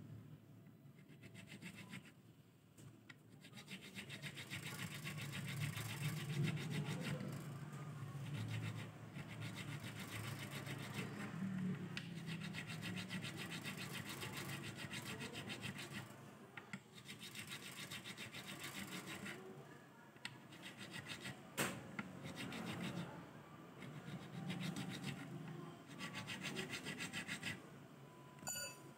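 Metal file rasping back and forth over a bass guitar's nut in quick repeated strokes, stopping briefly a few times: the nut is being filed down to lower the string action. One sharp tick about two-thirds of the way through.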